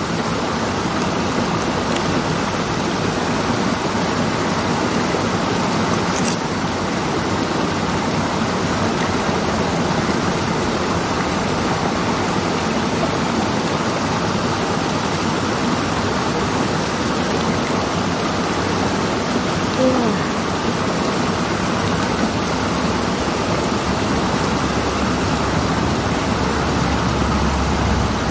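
Steady rushing of river water flowing over rocks, a constant even hiss with no break.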